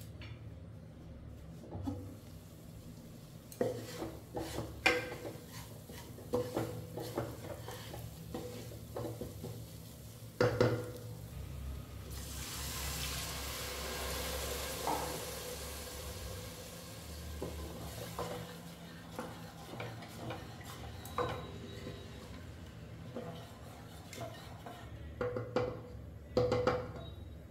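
Spoon stirring in a cooking pan, with sharp clinks and knocks against the pan scattered throughout and a stretch of sizzling about halfway through.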